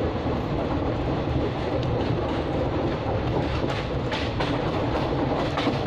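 A passenger train running on the rails, heard from inside the coach at the window: a steady rumble of the wheels, with a run of sharp clicks and knocks in the second half.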